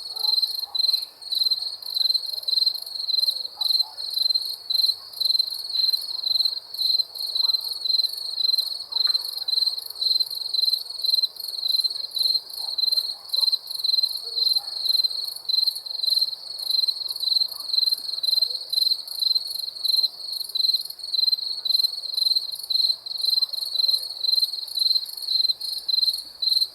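Crickets chirping: a high, steady run of evenly spaced chirps that never lets up.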